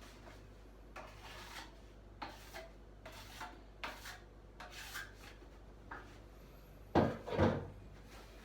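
A series of short scraping strokes of a filling knife working joint filler, then two loud knocks about seven seconds in.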